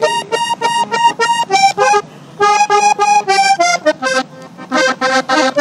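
Diatonic button accordion playing a vallenato introduction: quick runs of short, detached notes, with a brief pause about two seconds in.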